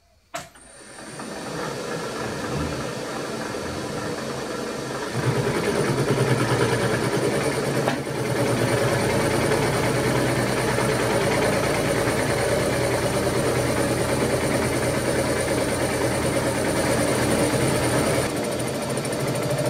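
Vertical milling machine starting with a click and spinning up. About five seconds in, its face mill begins a light skim cut across the top of a metal block, a steady machining sound with a constant whine, easing slightly near the end as the cutter nears the end of the block.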